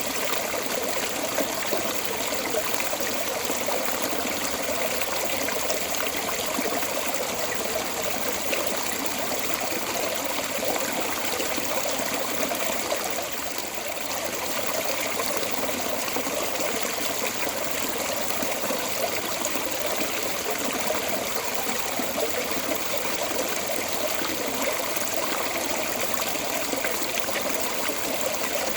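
Water flowing steadily out of a storm drain outlet, a constant splashing, trickling rush.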